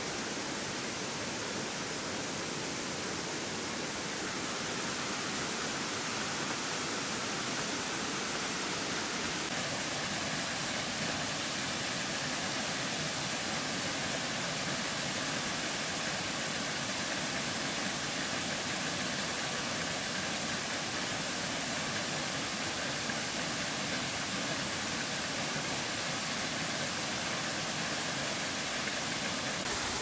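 Waterfall cascading over rock ledges: a steady, unbroken rush of falling water.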